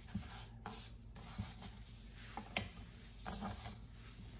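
Kitchen knife peeling fresh ginger root on a plastic cutting board: faint scraping and rubbing, with a light tap of the blade on the board about once a second.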